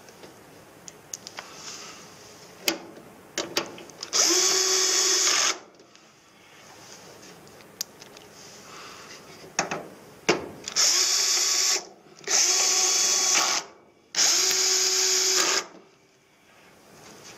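Cordless drill-driver running in four short bursts at a steady pitch, turning screws in the sheet-metal panels of an air-conditioning unit: one burst about four seconds in, then three in quick succession near the end. Light clicks and knocks of tool and panel handling come between the bursts.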